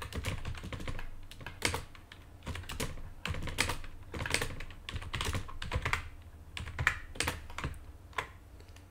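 Typing on a computer keyboard: irregular runs of keystrokes with short pauses between them, thinning out near the end.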